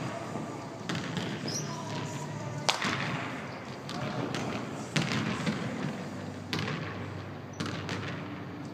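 Basketball bouncing on a hardwood gym floor: several sharp, irregularly spaced bounces, each echoing in the large hall.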